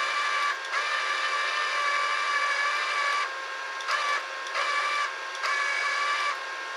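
Wire-feed motor of a Parkside inverter flux-core wire welder whining as it feeds new wire from the spool through the torch, over a steady hiss. It runs for about three seconds, stops, then starts and stops again in a few shorter spurts.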